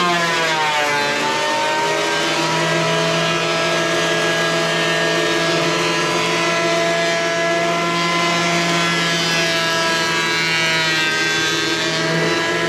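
Craftsman thickness planer running with a loud, high motor whine. About a second in, the pitch sags as a chainsaw-milled plank feeds through the cutterhead, then holds steady at the lower pitch under load.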